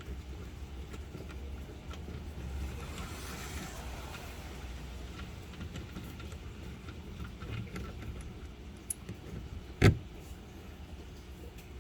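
Faint clinks and rattles of fasteners being worked loose from a car's plastic engine splash shield, over a low steady rumble, with one sharp knock near the end.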